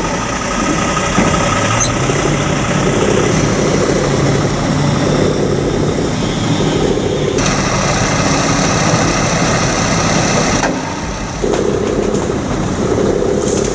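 Bulldozer's diesel engine running, loud and steady, with the sound changing abruptly twice, about halfway through and again near three-quarters of the way.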